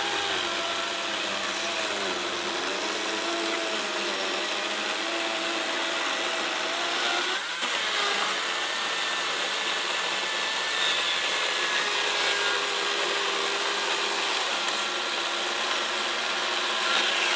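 Makita 36V cordless electric chainsaw cutting through a lodgepole pine log, its motor whine wavering in pitch as the chain bites into the wood. There is a brief dip about seven and a half seconds in as one cut ends and the next begins.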